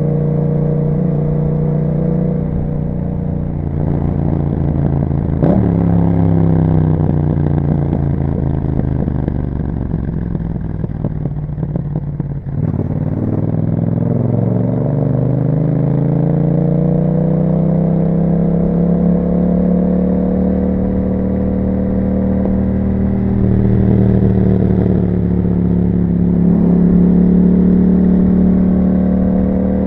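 2021 Yamaha MT-07's parallel-twin engine through an Akrapovic exhaust with a dB killer, heard while riding. The engine note drops as the bike slows for several seconds, then rises as it accelerates and settles into a steady pull.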